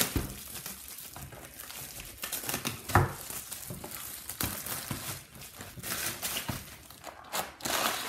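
Plastic shrink wrap being torn and crinkled off a cardboard trading-card box, with a sharp knock of the box against the wooden table about three seconds in and a louder stretch of rustling and tearing near the end as the box is opened.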